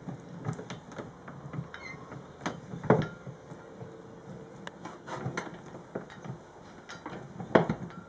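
Vintage wooden-tub washing machine's three-legged wooden dolly agitator swinging back and forth in the empty tub, its drive gearing clicking and clattering unevenly. Two louder knocks come about three seconds in and again near the end.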